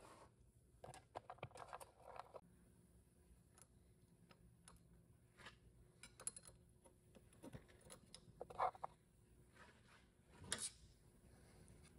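Faint, scattered clicks and taps of small metal parts being handled and fitted into a VW 01M/01P transmission's aluminium valve body. The two sharpest clicks come about eight and a half and ten and a half seconds in.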